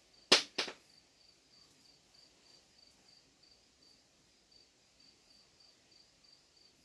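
Two sharp metallic clicks about half a second in, from transmission parts being handled, then a faint high chirping repeating about three times a second, as from a cricket.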